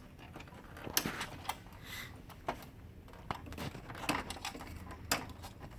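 Irregular clicks and knocks of printer parts being handled as the tray 1 pickup roller of an HP LaserJet Pro 400 M401 laser printer is worked on, about six sharp clicks spread over a few seconds.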